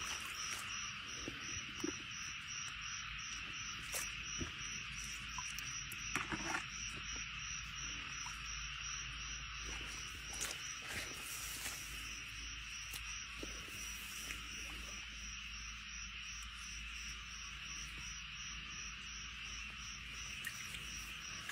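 A steady chorus of insects in the grass, with a cricket chirping in an even rhythm of about two chirps a second. Scattered light clicks and rustles come through as well.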